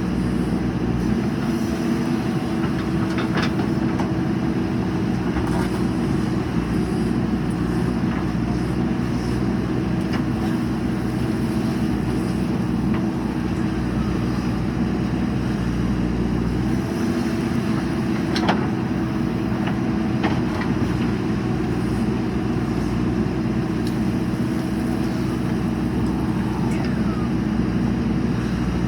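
JCB 3DX backhoe loader's diesel engine running steadily at work, with a couple of sharp metallic knocks.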